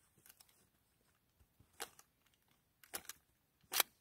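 Sharp metallic clicks and clacks from an AR-10 pistol in .308 being worked by hand to clear a stoppage, where a round failed to go fully into the chamber. There are three or four short clacks, the loudest near the end.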